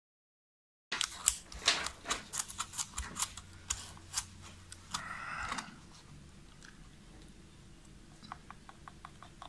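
Silent for about the first second, then sharp plastic clicks and scraping from hands working a BMW comfort access door handle's plastic housing, with a short burst of harder scraping about five seconds in. It ends quieter, with a row of light ticks.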